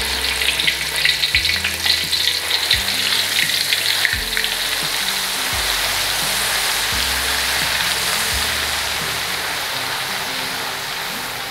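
Ground spice paste frying in plenty of hot cooking oil in a pan: sharp crackling for the first few seconds that settles into a steady sizzle.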